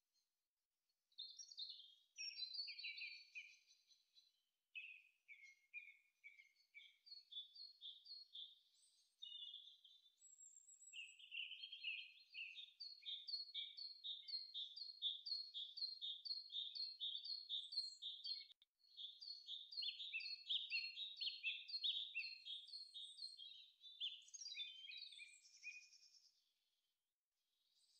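Birdsong: long runs of quick, high chirping notes with short pauses between the runs.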